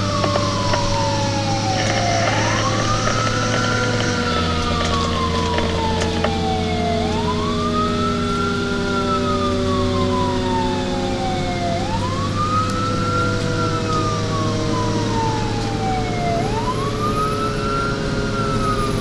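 Fire engine's siren on a slow wail, each cycle rising quickly and falling slowly, repeating about every four to five seconds. A lower tone sinks slowly underneath. The truck's engine drones steadily, its note dropping about four seconds in.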